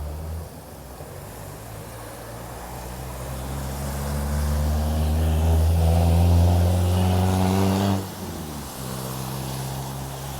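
A motor vehicle engine hum grows louder over several seconds, then drops off suddenly about eight seconds in, with a steady rain hiss beneath.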